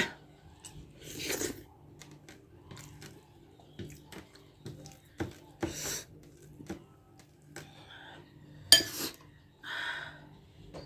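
Eating at the table: scattered clinks of dishes and cutlery with a few short, noisy mouthfuls between them, the sharpest clink about nine seconds in.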